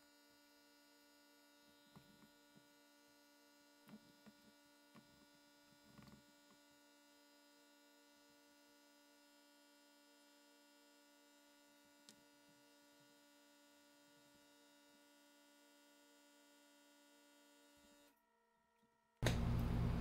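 Faint steady electrical hum with a few soft knocks from a motorcycle tire being handled on its wheel. About a second before the end, a much louder steady noise with a low drone cuts in suddenly.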